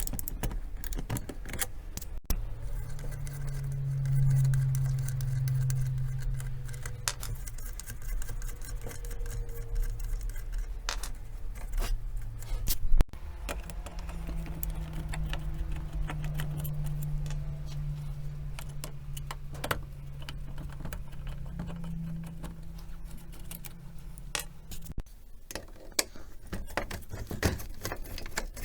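Small metal parts clinking and rattling as they are handled, with a steady low motor hum for most of the time that stops briefly about halfway through and cuts off near the end.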